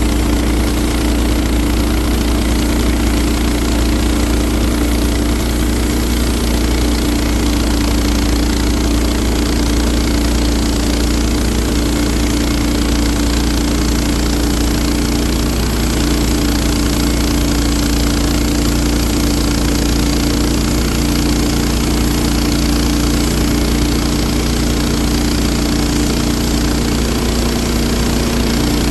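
Wood-Mizer portable sawmill's engine running steadily during milling.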